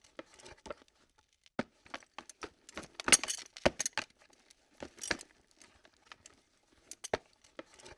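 Camera lens being moved, giving irregular sharp clicks and short rattling clatters with pauses between them, the busiest and loudest cluster about three seconds in.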